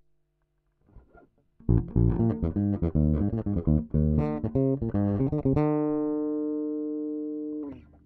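Yamaha RBX270J four-string electric bass played fingerstyle: a quick run of plucked notes, then a last note left ringing for about two seconds before it is damped short.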